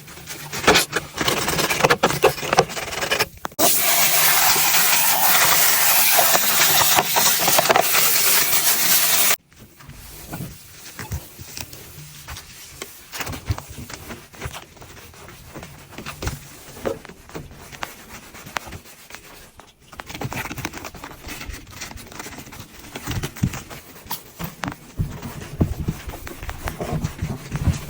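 Hands-on cleaning sounds: rubbing, scraping and small clicks, with a loud steady hiss for about six seconds that cuts off suddenly, followed by quieter rubbing and handling.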